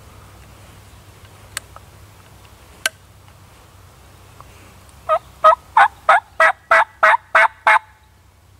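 Wild turkey yelping: a run of nine evenly spaced yelps, about three a second, starting about five seconds in. Two sharp snaps come a few seconds earlier.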